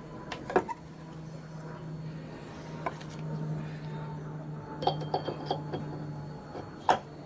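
Metal parts clinking and knocking as a 125 cc scooter's clutch and clutch bell are fitted by hand onto the driven shaft of its belt transmission. There are scattered light clinks, a quick run of them about five seconds in, and a sharp knock near the end.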